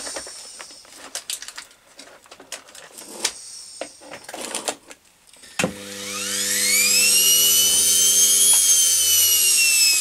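Washing machine universal (brushed) motor starting up about halfway in: a whine that rises in pitch over a second or so and then holds steady, with a steady hum underneath. It is wired with only one of its two field coils energised. Before it starts, scattered clicks and knocks of the plug and wires being handled.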